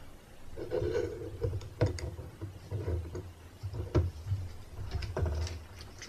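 A small C-clamp being handled and tightened onto a circuit board on a desk. There is rubbing and scraping of metal, several sharp clicks and knocks, the loudest about two and four seconds in, and a low handling rumble beneath.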